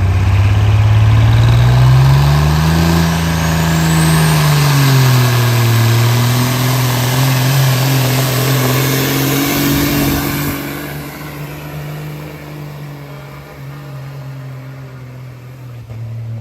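Pickup truck engine working hard under load, its pitch rising over the first few seconds, dipping, then holding steady. About ten seconds in it drops off and grows much quieter.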